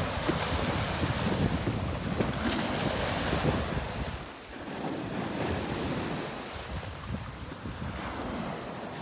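Small waves washing in and draining over a pebble and seaweed shoreline, with wind buffeting the microphone in low gusts. The surf eases briefly about four seconds in.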